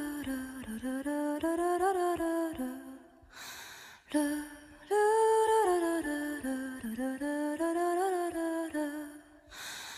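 Background music: a wordless, hummed vocal melody of held and gliding notes. The same phrase is heard twice, with a short break a little after three seconds in.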